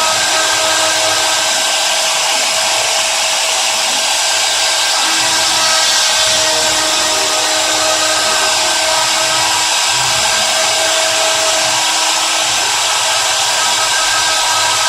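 CNC router spindle motor running steadily at speed: a loud, even rushing noise with a constant high whine.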